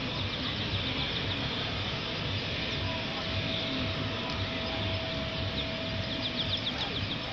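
Steady outdoor background hiss and rumble, with a small bird's quick run of high chirps near the end and a faint steady tone for a few seconds in the middle.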